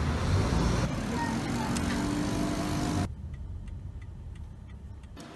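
Street traffic noise with a vehicle going by. About three seconds in it cuts to the quiet inside a moving car, where a car's turn-signal indicator ticks softly at about two to three ticks a second.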